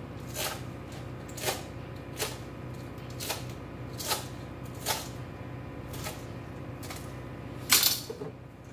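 Knife chopping cooked bacon on a plastic cutting board: a sharp knock of the blade on the board about once a second, the loudest a little before the end.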